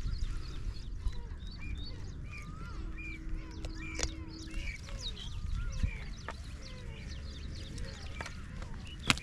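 Many birds chirping and calling at once, a dense run of short rising and falling chirps over a low rumble, with a sharp click near the end.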